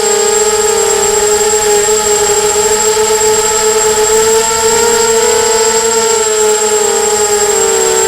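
Emax 250 racing quadcopter's electric motors and propellers whining steadily in flight, the pitch wavering slightly with throttle changes. A thin, steady high whine sits above it.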